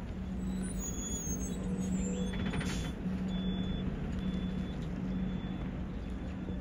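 Steady, distant jet rumble of a C-17 Globemaster III's four Pratt & Whitney F117 turbofan engines in flight, with a low steady hum.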